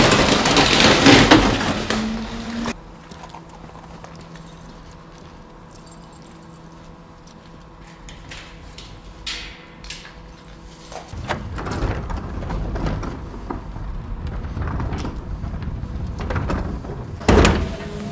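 Electric refuse compactor truck at work. About two and a half seconds of loud rushing noise, then a steady low electric hum with scattered clicks and clunks. Near the end, louder clattering and a sharp bang. The hum is much quieter than a diesel-driven hydraulic pump, so the small mechanical knocks stand out.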